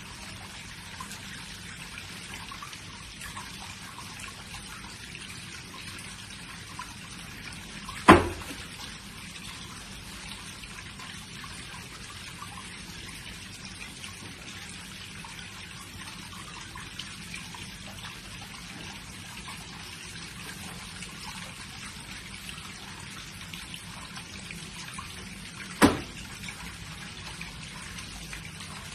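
Steady trickling, dripping water. Two sharp thumps stand out over it, one about eight seconds in and one near the end.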